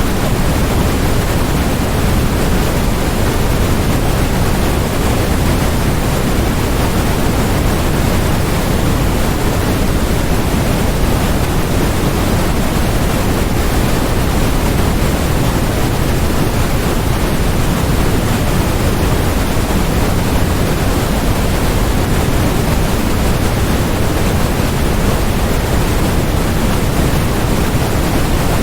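Steady electronically generated white noise: an even, unchanging hiss across the whole range, heavier in the low end than in the highs.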